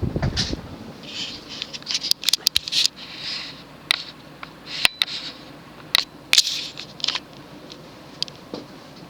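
Cast-iron-motor ceiling fan running at its top speed and still coming up to speed, a faint steady hum under scattered sharp clicks and short scratchy rustles. The loudest clicks come about five and six seconds in.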